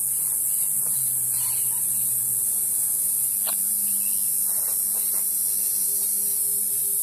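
Steady, high-pitched insect chorus droning on without a break, with a faint low hum underneath.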